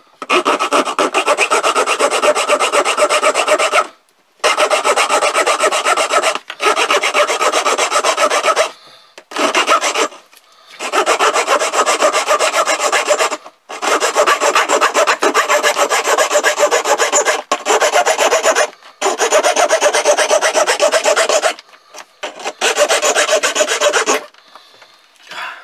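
Swiss Army knife's small metal-cutting saw blade sawing a steel nail, in quick back-and-forth strokes. It comes in about eight spells of a few seconds each, with short pauses between them.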